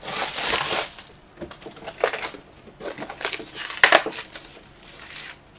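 Plastic crinkling and crackling as an air conditioner unit is opened up by hand, in irregular bursts with a sharp crack about four seconds in.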